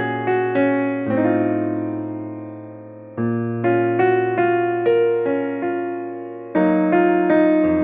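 Background piano music: a slow tune of struck notes over held bass chords, with fresh chords sounding now and then.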